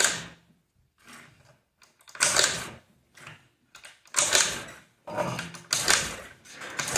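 Honda Metropolitan 49cc four-stroke scooter being kickstarted cold, a kick about every second. Each stroke gives a short clattering rush as the engine turns over, and the engine does not catch.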